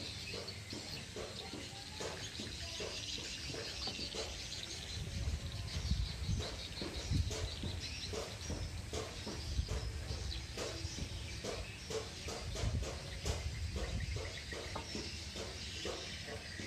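Many short, high animal chirps and calls, over a low rumble that swells in the middle.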